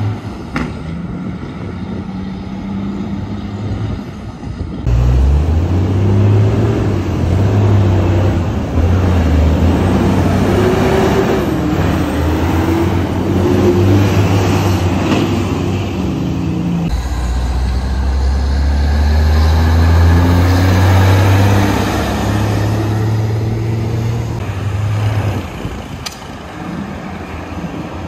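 Road traffic, then from about five seconds in the loud diesel engines of heavy vehicles passing close, a coach bus and a flatbed tractor-trailer, their engine note rising and falling. The engines ease off to ordinary traffic noise near the end.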